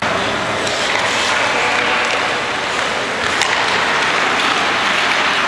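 Ice hockey rink ambience during play: a steady wash of echoing noise with a few sharp clacks, the clearest about three and a half seconds in.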